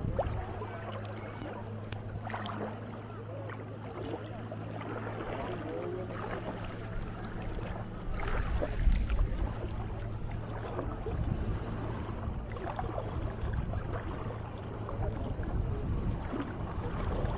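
A small motorboat's engine hums steadily and fades out about halfway through. Scattered voices of people on the beach sound over it, and wind rumbles on the microphone, stronger in the second half.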